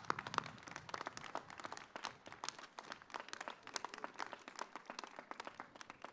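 A large crowd applauding: a dense patter of handclaps that thins out and fades as the applause dies down near the end.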